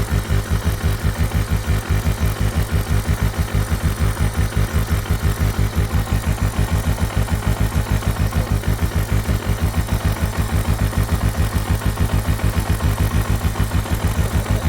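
Suzuki DR650S single-cylinder four-stroke engine idling steadily, a regular low pulsing beat.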